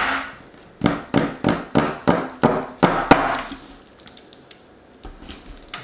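A person gulping Diet Dr Pepper from a 2-liter bottle: about eight quick swallows, roughly three a second, that stop about three seconds in. A sharp sound comes right at the very start.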